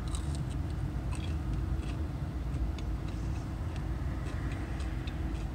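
Crunchy biting and chewing of a crisp-battered Popeyes fried chicken tender: small, scattered crackles of the crust over a steady low hum of the car.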